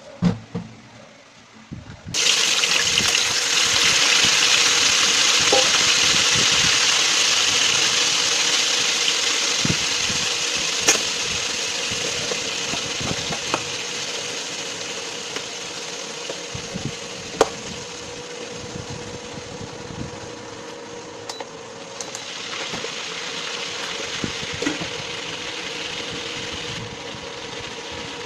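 Water boiling hard in a pot of chicken feet on an induction cooktop: a loud steady hiss that starts suddenly about two seconds in, over a steady hum, with a few light clicks of a utensil or lid on the pot.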